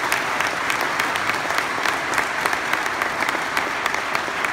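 A crowd applauding steadily, with sharp individual claps from someone close by standing out from the mass of clapping.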